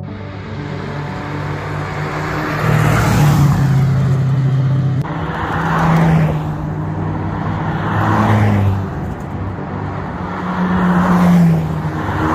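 Historic rally cars driving past one after another, each engine swelling up and fading away, about four times.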